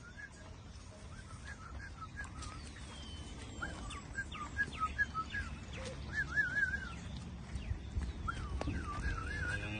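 Small birds chirping repeatedly, with short wavering trills and a few falling whistles, over a low, steady rumble.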